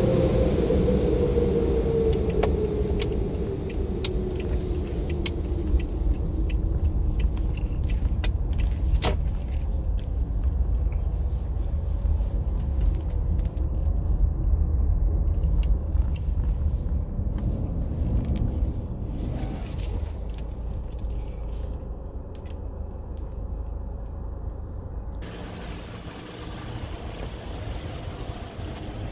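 Toyota Corolla driving, heard from inside the cabin: a steady low engine and road rumble, with a tone falling in pitch over the first few seconds and scattered light clicks. Near the end the rumble stops and a quieter background takes over.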